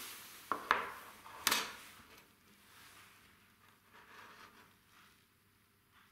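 Three sharp knocks in the first second and a half as a small aluminium square and mitred wooden frame strips are set down and pushed together on the saw's sliding table, then faint rubbing as they are handled.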